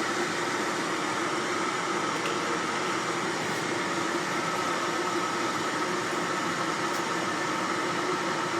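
HADIN EEON electric kettle heating a full load of water toward the boil: a steady hiss with a faint hum, the water not yet at a full rolling boil.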